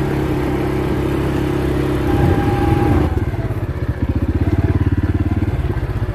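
CFMoto CForce 500 ATV's single-cylinder engine running steadily, then, about three seconds in, dropping to a low, even pulsing as the throttle is let off and engine braking slows the machine.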